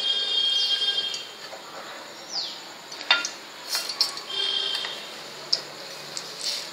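Steel ladle clinking against a pan of oil on the stove, several sharp metallic clinks spread out after the first few seconds. A high, steady whine runs through the first second or so.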